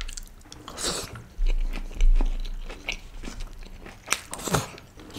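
Close-up eating sounds of a mouthful of pulao with cashews: uneven chewing and crunching clicks, with a couple of sharper crunches near the end. A dull low thud comes about a second and a half in.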